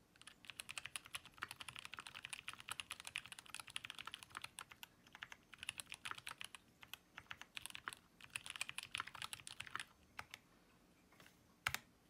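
Fast typing on a TX60 aluminium-cased HHKB-layout mechanical keyboard with Zealio 62g tactile switches lubed with Krytox 105: rapid keystrokes in bursts with short pauses for about ten seconds, then a few scattered keystrokes and one louder single stroke near the end.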